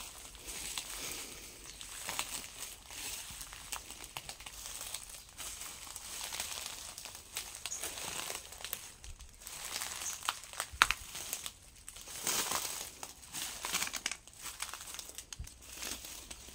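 Irregular crinkling and rustling with scattered crackles and clicks, one sharper click about eleven seconds in, with a small-room sound.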